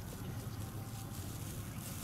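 A steady low rumble of outdoor background noise, with no distinct calls or knocks standing out.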